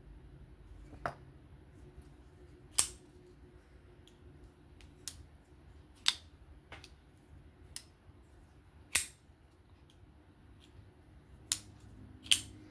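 Vosteed Acorn folding knife being opened and closed: a series of short, sharp clicks, about nine in all, with the loudest every three seconds or so as the blade snaps into place.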